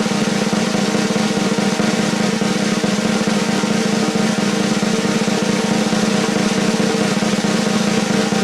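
Snare drum roll sound effect, loud and steady with no break, used as a suspense cue.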